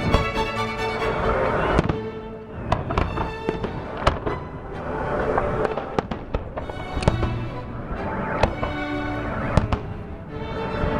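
Fireworks salute shells bursting: about a dozen sharp bangs at irregular intervals, some with a crackling tail, over music with long held notes.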